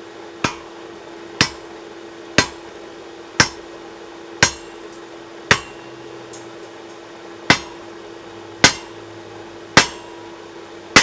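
Blacksmith's hammer striking metal on an anvil, sharp single blows about once a second with a short pause partway through. A faint steady hum runs under the strikes.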